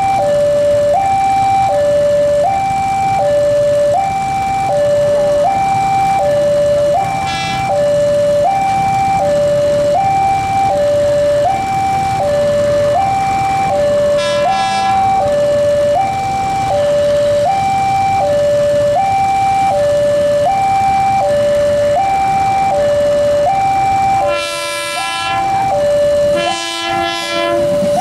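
Level-crossing warning alarm sounding a continuous two-note electronic tone, high then low, a little under a second per note. A KRL JR 205 series electric commuter train approaching the crossing sounds its horn with short toots about a quarter of the way in and halfway through, then two longer blasts near the end.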